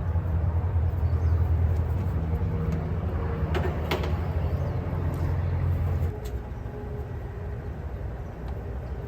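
A steady low mechanical hum that cuts off sharply about six seconds in, with a few short knocks over it.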